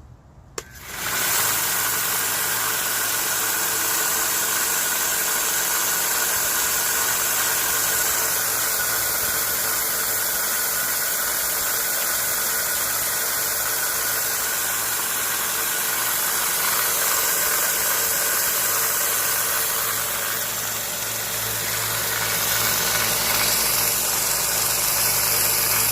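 A click about half a second in as the Central Machinery 1 x 30 inch belt sander is switched on, then its motor and belt spin up quickly and run steadily at full speed, with a slight change in the sound about twenty seconds in.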